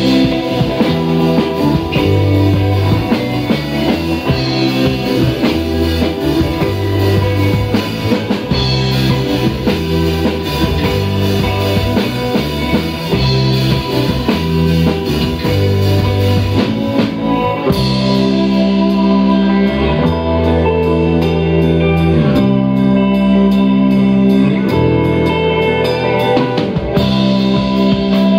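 Live instrumental band music with electric guitar, electric bass and drum kit playing a rhythm that mixes rock with Argentine chacarera. About eighteen seconds in, the drums drop back and guitar and bass carry on.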